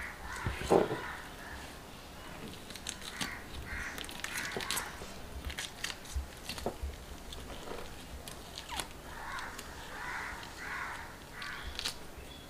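Scales being scraped off a whole fish with a small knife: a run of short, crisp scrapes and clicks, with a louder knock about a second in.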